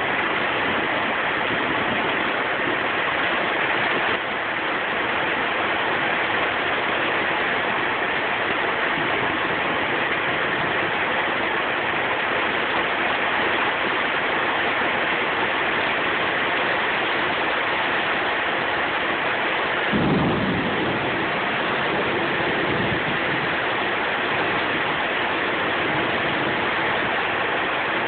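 Heavy rain falling steadily as a dense hiss. About two-thirds of the way through, a low rumble of thunder rises and carries on under the rain.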